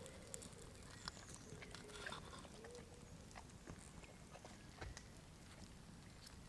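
Faint, sparse crackles and ticks from a campfire with meat cooking on the grill. In the first three seconds a soft, low call rises and falls several times.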